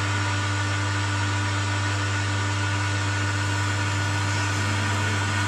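Home theater subwoofer giving a loud, steady hum in place of sound, with fainter steady higher tones over it. The repairer suspects a faulty TDA2030 subwoofer amplifier IC.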